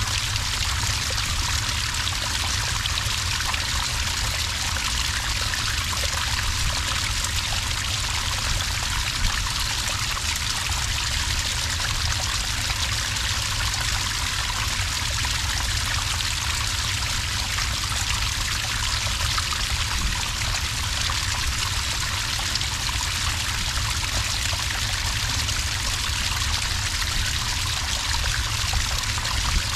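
Small cascade of water pouring onto sand, a steady, unbroken trickling splash.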